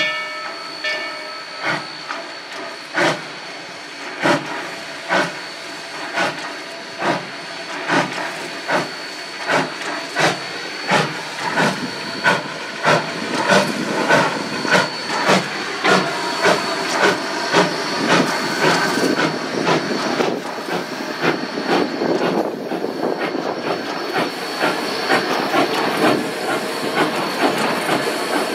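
Narrow-gauge K-37 class 2-8-2 steam locomotive working a freight train: its steam whistle ends about a second in, then sharp exhaust chuffs quicken from about one a second to nearly two a second as the engine gathers speed, over a steady hiss. In the second half the rolling noise of the tender and cars grows under the beats.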